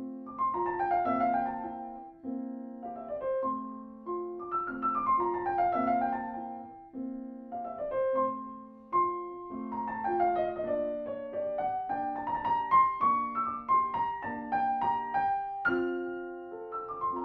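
Grand piano played solo in a classical piece: falling runs of notes recur about every two seconds over held lower notes, and the playing grows busier about ten seconds in.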